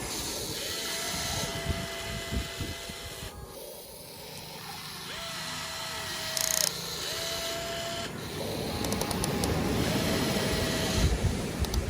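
Small electric motors of a radio-controlled toy excavator whining in five short runs of one to two seconds, each rising briefly in pitch as it starts, as the arm and bucket are worked. Irregular low rumbles of wind buffet the microphone underneath.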